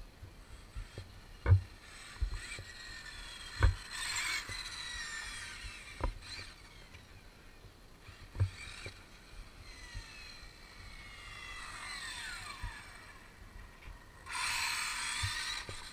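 Arrma Limitless 1/7 electric RC car running on short throttle bursts: the brushless motor's whine glides up and down in pitch with tyre hiss, swelling loudest about four seconds in and again near the end. A few short dull knocks are heard in between.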